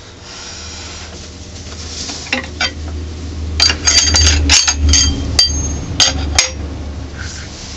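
Metal lathe tooling being handled: a cluster of sharp metallic clinks and knocks, some with a brief high ring, as the drill chuck is taken off the tailstock. The clinks come over a steady low hum.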